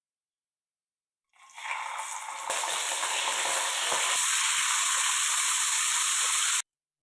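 Food sizzling in hot oil in a pan: the sizzle starts about a second in, jumps louder a moment later, and runs as a steady hiss with a few crackles until it cuts off suddenly near the end.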